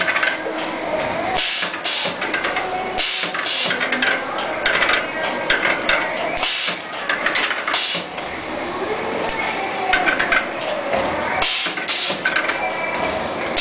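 CNC 3D bending machine running through its bending cycle: a continuous mechanical clatter with wavering whine, broken by short bursts of hiss every second or two.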